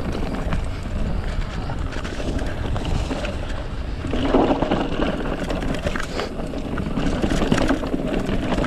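Mountain bike riding fast down a dirt singletrack: wind buffeting the camera microphone over the rumble of tyres on the trail, with small rattles from the bike over bumps and a louder jolt about four seconds in.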